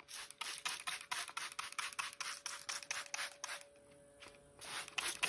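Trigger spray bottle squirted rapidly over and over, a quick run of short hissing sprays at about five a second, then a pause and a few more near the end. It is misting the sanded ash tabletop to raise the grain before a final smoother sanding.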